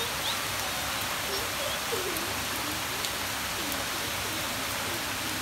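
Steady rain falling: an even, unbroken hiss with a few scattered drip clicks.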